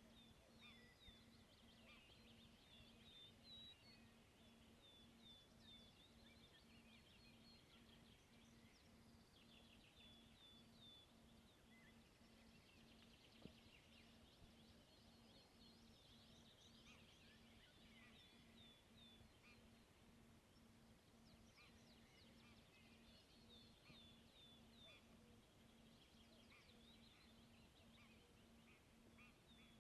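Faint birdsong: many short, high chirps and trills from small birds, over a faint low hum that pulses at an even rate.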